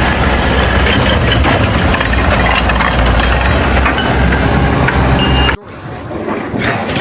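Heavy machinery or a truck engine running loudly, with a deep rumble and dense clatter and a short high tone just before it cuts off abruptly about five and a half seconds in. A quieter, different sound follows.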